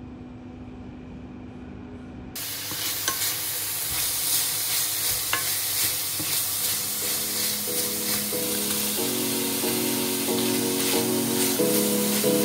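Minced beef in bulgogi sauce sizzling in a frying pan and stirred with a wooden spatula, with small scrapes, cutting in suddenly about two seconds in after a low steady hum. Soft background music with piano-like notes comes in over the second half.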